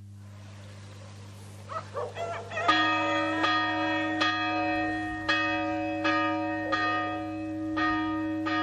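Church bell ringing in repeated strokes, about eight of them under a second apart, each ringing on into the next; it starts a few seconds in, after a few brief wavering sounds. A low steady hum runs underneath.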